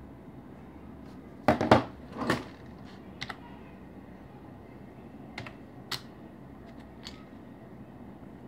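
Computer keyboard keys pressed slowly, one at a time: a few loud clacks about a second and a half in, then single sharper taps every second or so.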